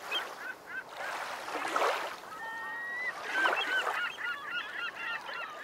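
A flock of birds calling in many short, hooked cries, growing into a dense overlapping chorus in the last two seconds. One long steady whistled note sounds about halfway through, over washes of noise that swell and fade like waves.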